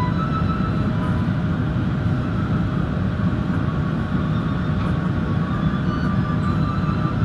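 Steady low rumble of a jet airliner, an Airbus A380, with background music whose melody fades out and comes back in during the second half.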